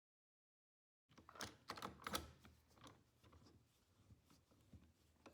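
A quick run of light, sharp clicks and knocks starting about a second in, loudest in the first second, then thinning out to faint scattered ticks.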